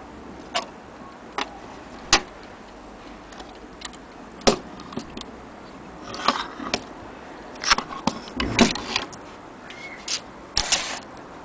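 Irregular metallic clicks and knocks as an antique French mantel clock movement and its brass bezel and back cover are handled, lifted off a kitchen scale and set down on a wooden table. The knocks are louder and come in short clusters in the second half.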